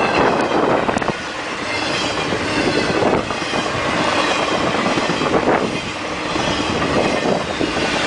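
BNSF intermodal freight train of truck trailers on flatcars passing close by at speed: a steady loud rumble and rattle of the cars, with the wheels clattering over the rails.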